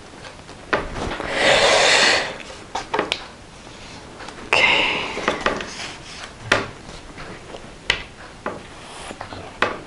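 Paper rustling and rubbing as a small paper label strip is handled and pressed onto a paper cutout on a tabletop, in two stretches about a second and four and a half seconds in, with scattered light taps and knocks of fingers and objects on the table.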